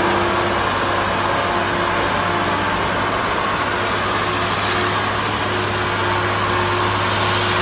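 Diesel engine of a crawler dragline excavator running steadily under load, a constant low hum with a broad even rush over it.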